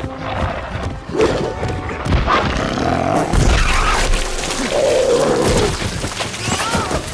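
Action-film sound mix: the alien hound's wavering roars and crashing impacts, with a heavy boom about three and a half seconds in as the creature bursts apart, over a music score.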